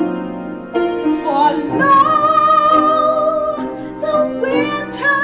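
A woman singing solo in a trained, operatic style, holding long notes with vibrato that climb to higher pitches twice.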